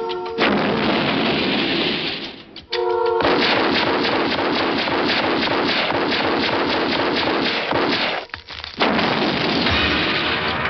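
Film gunfight soundtrack: rapid gunfire, about six shots a second, mixed with music. It breaks off briefly twice.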